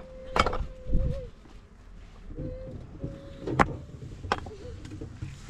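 A person crying in long, held wailing tones, several times over, upset over the family's collapsed home. A few sharp clicks or knocks fall among the cries.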